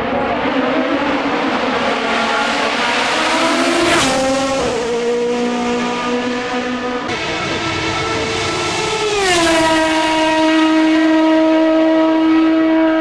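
Hill-climb race car engines running at high revs, a steady, high-pitched engine note. There is a sharp break about four seconds in, and around nine seconds the pitch drops and then holds steady.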